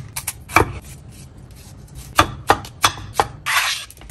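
Red bell peppers being cut up on a wooden cutting board: sharp knocks of the knife on the board, several in quick succession in the second half, then a brief scrape across the board near the end as it is swept clear.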